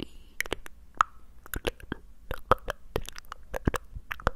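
Close-miked ASMR mouth sounds: a rapid, irregular series of wet mouth clicks and pops made with hands cupped around the mouth against a handheld recorder's microphones.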